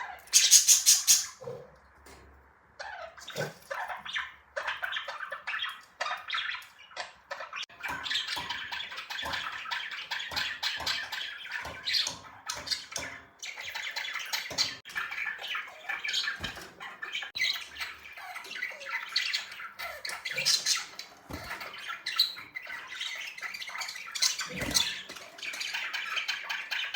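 Budgerigars chattering and warbling, a dense run of rapid chirps and squawks, with a loud harsh burst about a second in.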